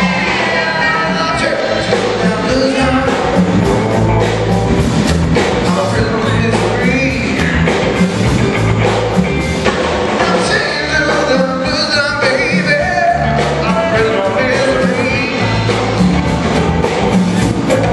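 Live rock and roll band playing: a man sings at the microphone over electric guitar, a walking bass line and a steady drum beat.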